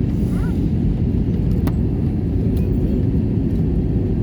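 Steady low rumble of an airliner heard from inside the passenger cabin during landing, with a faint click about a second and a half in.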